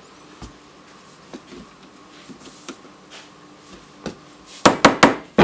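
Quiet handling of small pistol trigger parts and tools, with faint scattered ticks, then four sharp clicks in quick succession near the end.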